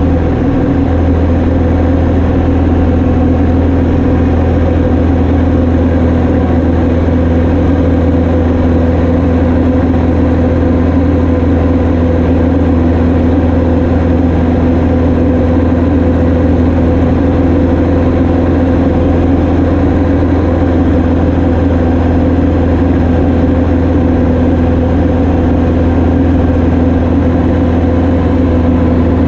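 Light training aircraft's piston engine and propeller droning steadily in flight, a loud, unchanging hum.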